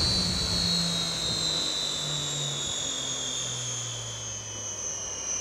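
Gas turbine engine of a jet boat giving a high whine that slowly falls in pitch, with a lower engine note stepping down beneath it, as the turbine winds down.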